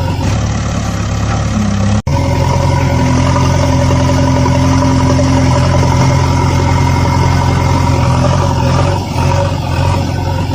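A motor vehicle engine running steadily at a low, even pitch. The sound cuts out for an instant about two seconds in, then resumes.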